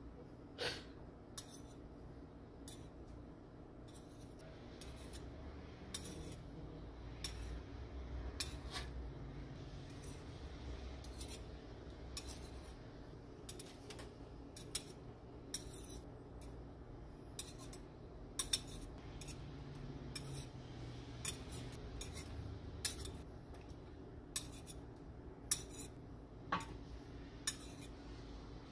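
Two metal spoons clicking and scraping against each other as salsa is scooped and pushed off onto tortilla chip cups. The light clicks come irregularly, about one a second, over a low steady hum.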